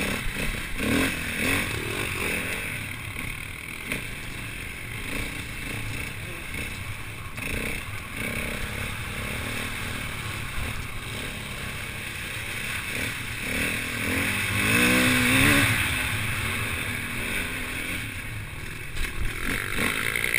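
KTM 450 EXC dirt bike's four-stroke single-cylinder engine, heard from the rider's camera as it is ridden around a dirt track, its revs rising and falling with the throttle. It is loudest at a hard rev-up and back down about three-quarters of the way through.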